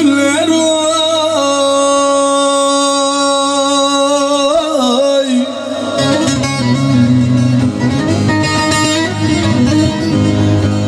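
Live Turkish folk music from a male singer, an electric bağlama and a Korg keyboard. A long held note with wavering bends fills the first half; from about six seconds in a busier plucked bağlama line runs over a steady bass.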